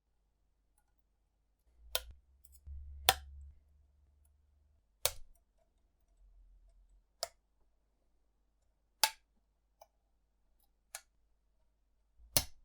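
Sharp clicks from keyboard parts being fitted during a mechanical keyboard build, about eight of them, coming irregularly every second or two, with a faint low rumble between the first few clicks.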